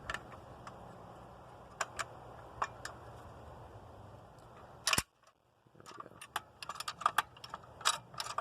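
Sharp metallic clicks and ticks as a car jack is worked against the wrench on a stuck brake caliper bracket bolt. They come a few at a time at first, with one loud click about five seconds in and a brief silence after it, then quickly near the end.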